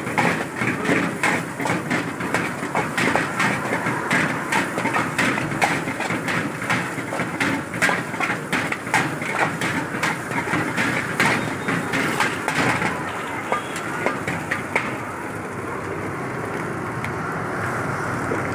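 Steel ladle knocking and scraping against a large iron wok in a quick, uneven rhythm while shredded cabbage is stir-fried, over a steady hiss from the gas burner and frying. The ladle strikes stop about fifteen seconds in, leaving only the hiss.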